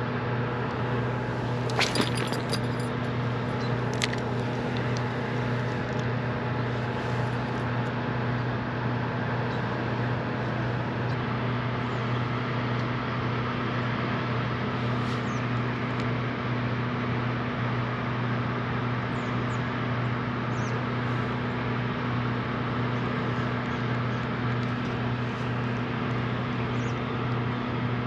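A steady low machine hum, with an unchanging drone over a constant background rush. Two brief clicks sound about two and four seconds in.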